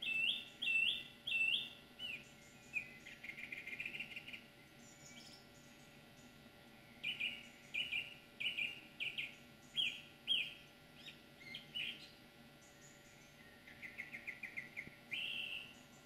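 A songbird singing in separate phrases with short pauses between: first three clear repeated notes, then fast trills and runs of sharp notes. The recordist wonders whether it is a wren.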